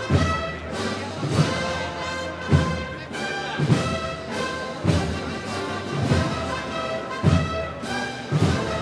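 A brass and drum band playing a slow processional march: held brass chords over a heavy drum beat that falls about once a second.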